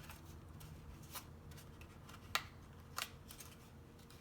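Cardstock paper petals being handled and pressed into place: scattered light crinkles and taps, the sharpest two a little over two seconds in and at about three seconds.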